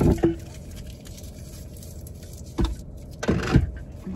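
Rustling and handling of fast-food packaging and a drink cup inside a car, over a steady low hum. There is a brief rustle at the start and louder crinkling bursts about two and a half and three and a half seconds in.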